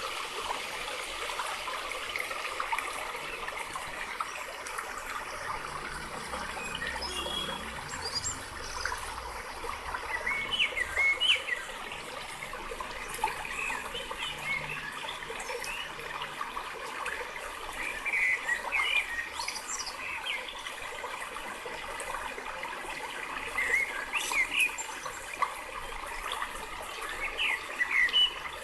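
Steady rush of flowing water, with small birds chirping in short quick phrases several times over it.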